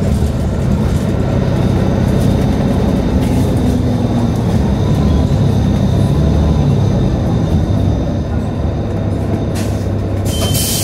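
Nova Bus LFS city bus in motion: a steady low rumble of engine, drivetrain and road, easing slightly near the end, with a short hiss just before the end.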